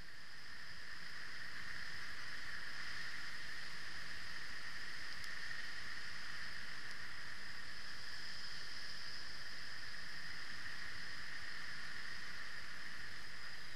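Steady hiss with no clear engine note, fading up over the first two seconds and then holding level.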